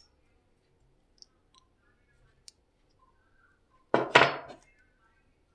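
A few faint metallic clicks from a chuck key working the keyed drill chuck on a 775 DC motor drill. About four seconds in comes a short, loud clatter with two quick hits, dying away in under a second.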